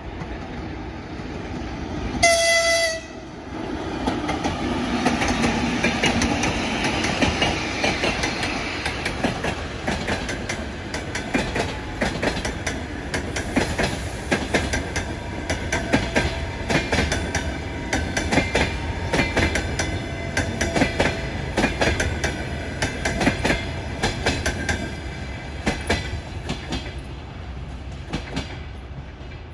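EP2K electric locomotive gives one short horn blast about two seconds in. Then it and its passenger coaches run past, with wheels clattering over the rail joints. The noise eases off near the end as the last coach goes by.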